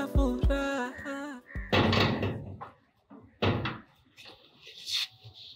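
Background music breaks off about a second and a half in. Two heavy thuds follow, about two seconds and three and a half seconds in.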